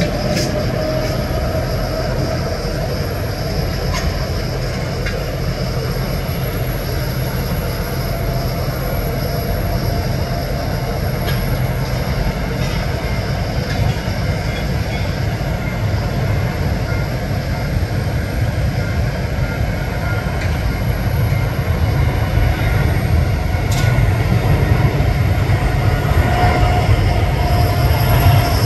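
Boeing 787 airliner's twin jet engines at takeoff power: a steady low rumble with a faint whine, growing louder toward the end as the jet accelerates down the runway and lifts off.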